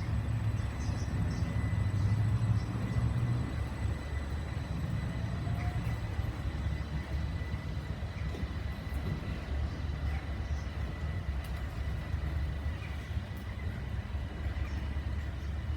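Train sounds at a station platform: a steady low rumble with a thin, steady high whine above it.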